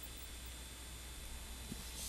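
Quiet room tone: a faint steady hiss with a low hum underneath.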